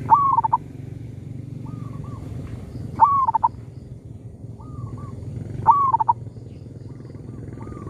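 Two zebra doves cooing back and forth, each phrase a short burst of stuttering coos. Three loud, close phrases about three seconds apart alternate with fainter, more distant replies, over a steady low hum.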